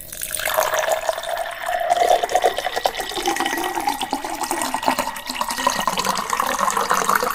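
Water running from a tap into a container, with a hollow tone that rises slowly in pitch as the container fills. The flow stops abruptly at the very end.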